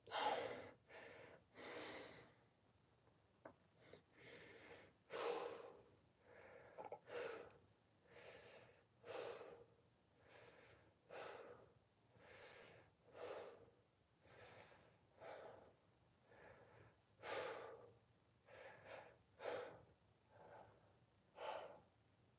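A man breathing hard through a fabric full-face mask, about one heavy breath a second, as he catches his breath between sets of a chest workout.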